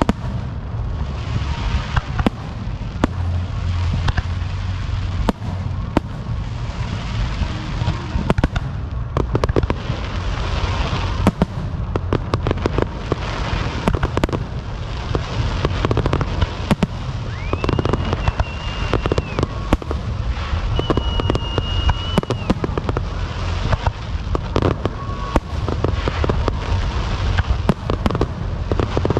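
Fireworks going off in rapid succession: booms and crackling bangs over a low rumble. Two high, steady whistles from whistling fireworks come about two-thirds of the way through.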